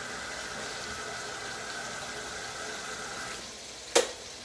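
Just-boiled water pouring from a kettle into a pot, a steady stream that stops about three and a half seconds in, followed by one sharp knock.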